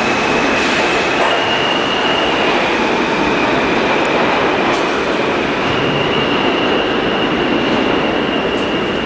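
New York City subway train running, heard from on board: a loud, steady rumble of wheels on rail with a thin high whine over it. The whine steps up slightly in pitch about a second in and again past halfway.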